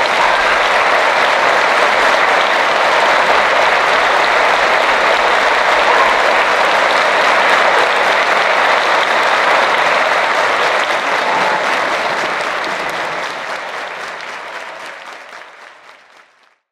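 Theatre audience applauding, a dense, steady clapping that fades out over the last few seconds.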